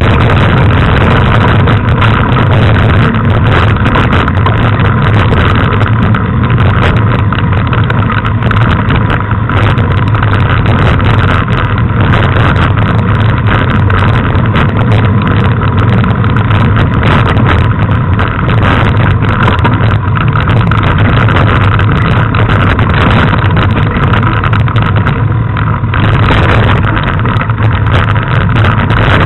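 Loud, steady rumble and rattle picked up by a bike-mounted camera on a mountain bike riding over gravel and dirt trail: wind on the microphone and the frame's vibration, with frequent small knocks from the rough ground.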